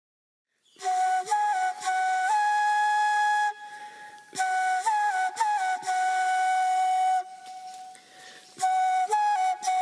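A flute playing a slow melody in three phrases with short pauses between them, long held notes moving by small steps up and down with little ornamental turns, starting just under a second in.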